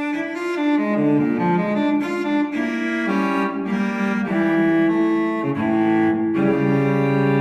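Background music: a solo cello playing a melody of held, bowed notes that change every second or so.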